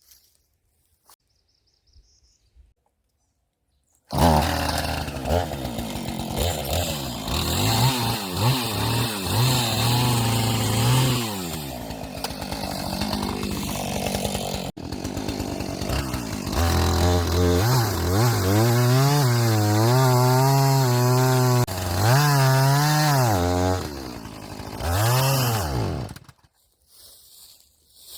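Gasoline chainsaw cutting through a blown-down poplar trunk: it starts up about four seconds in and runs loud under load, its engine pitch dipping and climbing again and again in the cut. Near the end the engine suddenly dies because the saw has run out of gas.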